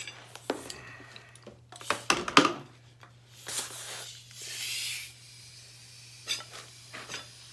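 Knocks and clicks of handling the wheel and air line, the loudest a knock a little over two seconds in, then two short hisses of compressed air going into a motorcycle tire to seat its bead on an aluminum rim.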